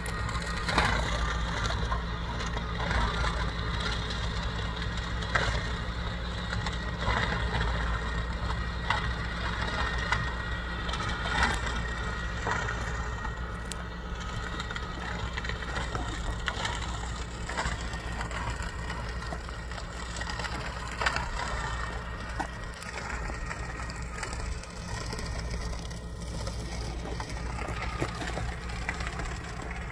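Tractor engine running steadily as it pulls a working manure spreader across a field, with scattered sharp cracks and crunches over the drone.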